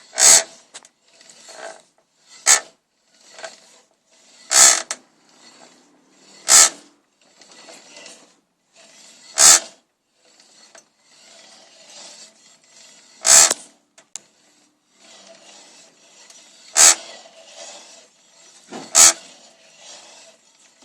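Drive chain and rear wheel of a 2013 Triumph Street Triple being turned, giving a short, sharp creak every two to four seconds over a quieter steady rubbing. This is the strange noise the owner is chasing while lubricating the chain.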